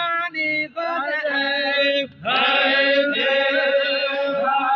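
Men's voices chanting a chogan, the Baloch devotional circle chant, in long held, wavering notes. A short break comes about two seconds in, and then a new phrase begins loudly.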